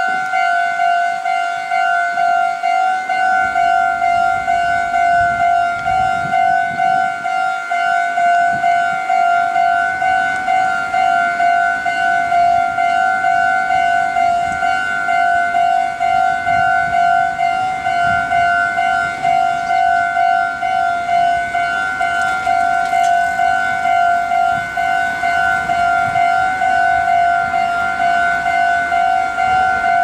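Japanese railway level-crossing warning bell: an electronic bell tone ringing over and over in a steady quick rhythm, signalling that a train is approaching and the barriers are down.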